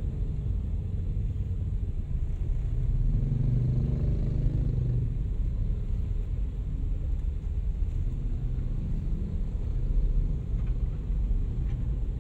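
Low, steady rumble of a car's engine and tyres heard from inside the cabin while driving slowly, swelling a little louder for a couple of seconds about three seconds in.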